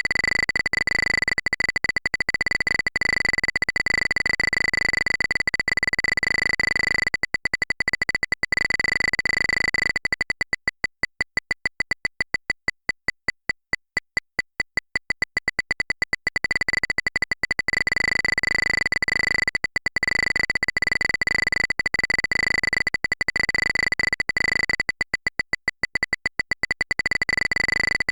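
Geiger counter clicking in a rapid, crackling stream. About ten seconds in the rate drops to separate clicks for several seconds, then climbs back to a dense crackle, as the radiation count rises and falls.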